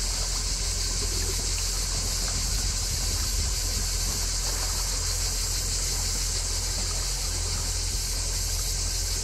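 Cicadas singing in a steady high-pitched chorus, over the low hum of a canal boat's engine.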